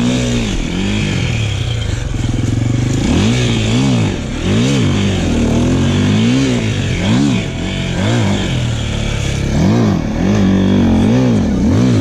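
KTM enduro dirt bike engine under load on the throttle, revving up and falling back over and over as the bike is ridden.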